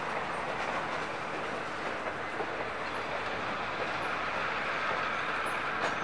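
Passenger coaches rolling slowly past, a steady noise of steel wheels running on the rails.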